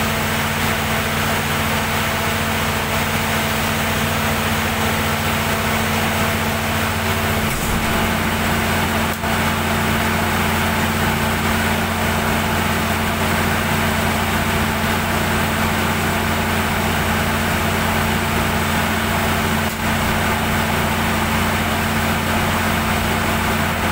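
Perkins diesel generator set engine running steadily at constant speed, its low tone shifting slightly about seven and a half seconds in.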